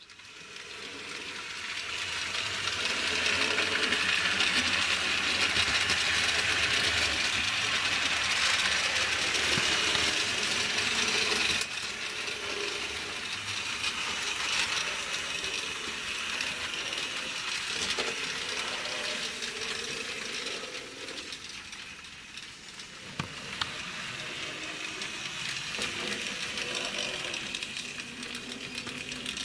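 Model trains running on the layout's track: a steady rattle and hiss of wheels and small motors. It builds over the first few seconds, drops suddenly about twelve seconds in, and carries on at a lower level. Near the end a model steam tank locomotive hauling coaches runs past.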